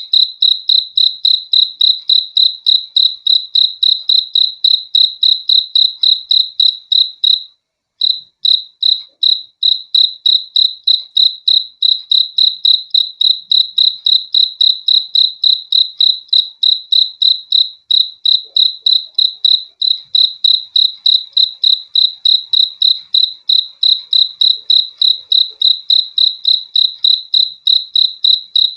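A cricket chirping in a steady, even rhythm: high-pitched chirps at about three a second, with one brief break about seven and a half seconds in.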